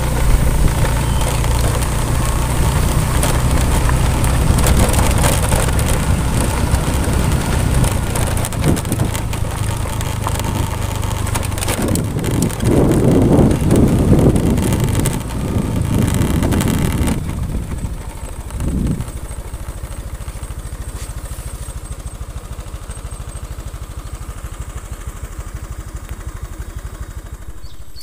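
Motorcycle engine running while riding along a rough dirt track. About two-thirds of the way through it drops to a quieter, steady, even running.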